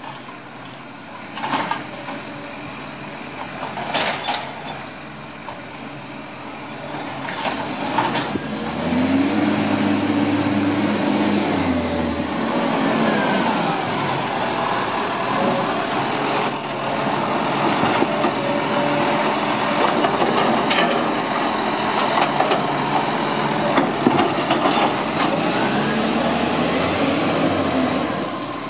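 Diesel engine of an Iveco Acco side-loader garbage truck driving past close by, louder from about eight seconds in as it nears. There are several short sharp hisses from its air brakes in the first few seconds and a thin high whine rising and falling.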